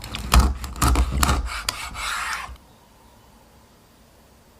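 A knife rasping through the crisp crackling of roast pork belly: four short crunchy strokes about half a second apart, then a longer rasp that stops about two and a half seconds in.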